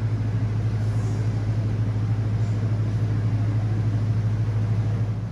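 Steady low mechanical hum, even in level throughout.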